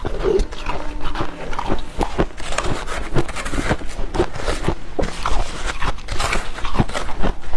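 Crunching of dry freezer frost being bitten and chewed, a dense run of sharp irregular crackles, with a metal spoon scraping and scooping frost in a plastic bowl.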